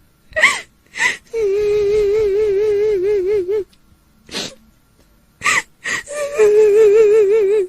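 Kuntilanak ghost crying sound: a high female-sounding wail held in long, wavering notes, with short sharp gasping breaths between them. One wail runs from about a second and a half in to three and a half seconds, and a second begins about six and a half seconds in.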